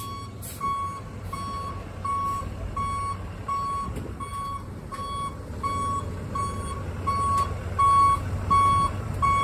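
Backup alarm of a truck reversing, a steady single-pitched beep repeating about twice a second, with the truck's engine running low underneath.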